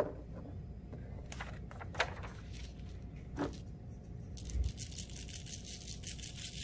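A few light knocks on a tabletop as the bar magnets and paper are set down. Then, a little over four seconds in, iron filings are shaken out of a jar onto a sheet of paper, making a fast, fine rattle.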